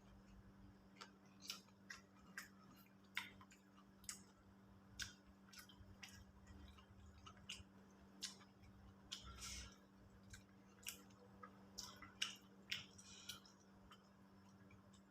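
Quiet eating sounds: irregular small clicks and smacks of a mouth chewing food, about one or two a second, with a longer soft rustle a little past halfway. A faint steady hum runs underneath.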